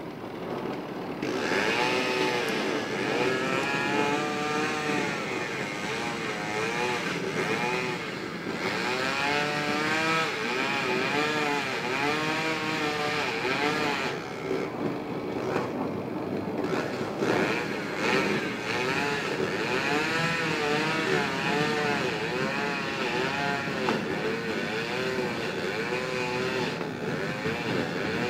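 Two-stroke chainsaw running under load, its pitch rising and falling over and over as it cuts. It dips briefly about eight seconds in and again around fourteen to sixteen seconds.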